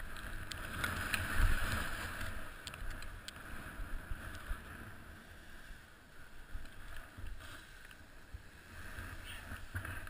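Snowboard sliding and turning through soft snow: a steady hiss and scrape of the board with wind noise on the microphone, loudest about a second or two in.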